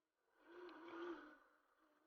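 Faint whine of a toy RC jeep's small electric motor, swelling up and fading away about a second in.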